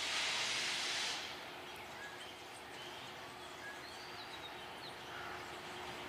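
A loud steady hiss cuts off sharply about a second in. Then birds chirp over the faint steady hum of the approaching GE U20 diesel locomotive.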